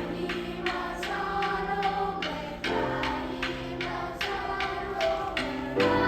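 Youth choir singing sustained chords, moving to a new chord about a second in, again near the middle and again near the end.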